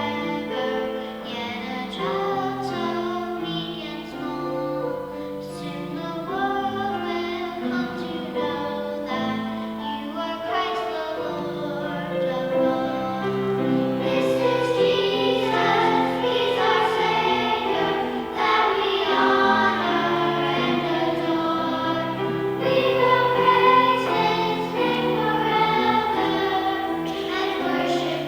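A choir singing a Christmas song with accompaniment, getting louder about halfway through.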